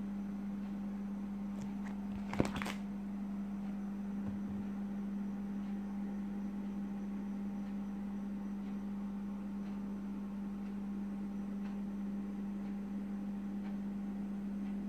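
A steady low hum, with one sharp click about two and a half seconds in.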